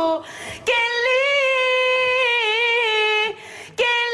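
A woman's unaccompanied singing voice, the raw vocal track without band. It holds one long sung note for about two and a half seconds, its pitch wavering slightly, with an audible intake of breath before it and another just before a new note begins near the end.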